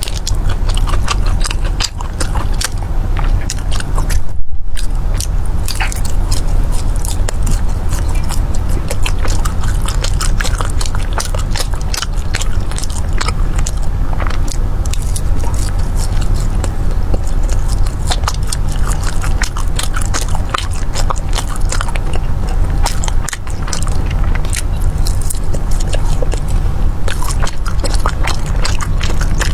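A person biting and chewing crunchy honey-glazed fried dough pastries close to the microphone: a dense, irregular run of crisp crunches and crackles over a steady low hum.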